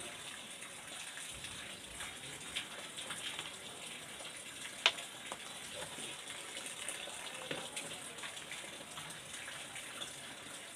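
Steady background hiss with scattered light clicks from handling tools and wires on a workbench, and one sharp click about five seconds in.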